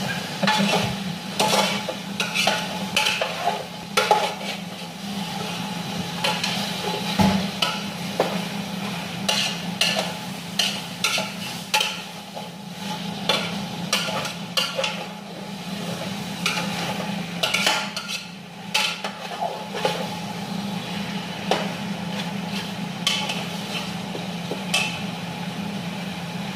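Wooden spoon stirring and scraping chicken pieces being sautéed in a stainless steel stockpot, with irregular knocks of the spoon against the pot over a faint sizzle. A steady low hum runs underneath.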